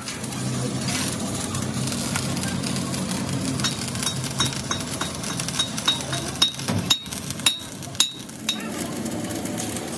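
Stick (arc) welding on a steel tractor front blade: a steady crackle from the arc. Between about four and eight and a half seconds in comes a run of sharp, ringing metallic clinks.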